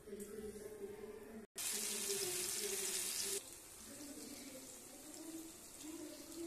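Hot oil sizzling in a frying pan as masala-coated rohu fish pieces shallow-fry. After a brief dropout about a second and a half in, a loud hiss starts suddenly, then eases after about two seconds into a quieter, steady sizzle.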